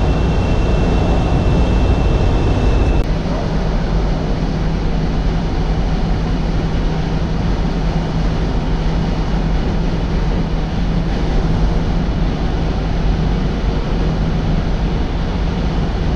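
Semi-truck's diesel engine running steadily, a low drone under a constant rushing noise; the sound changes slightly about three seconds in, when a thin high tone stops.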